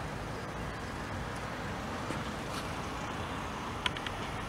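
Steady low rumble of a train approaching in the distance, mixed with outdoor background noise, with a short sharp click near the end.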